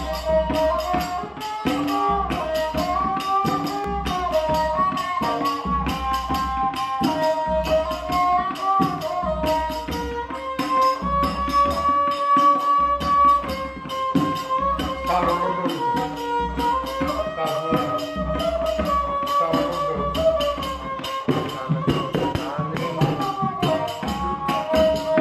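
Behala, a bowed folk fiddle, playing a Bengali folk melody that slides between notes, accompanied by a hand drum keeping a steady beat.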